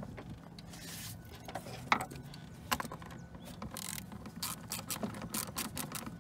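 Clicking and rattling of plastic engine-bay parts as gloved hands work a hose connector loose: one sharp click about two seconds in, then a quick run of clicks, about five a second, near the end.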